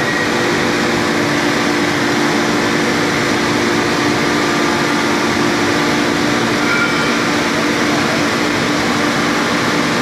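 Steady, loud roar of a dual-fuel bogie hearth forging furnace running, its burners and combustion blowers making an even rush with a low hum.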